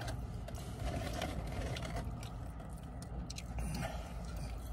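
Steady low hum inside a car cabin, with scattered faint rustles and small clicks of a paper napkin being handled and chicken wings being eaten.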